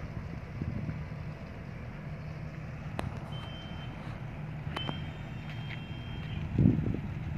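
Low steady drone of a tugboat's diesel engine as it brings a barge in. In the middle come two high electronic beeps, a short one and then a longer one, each starting with a click. Near the end there is a gust of wind on the microphone.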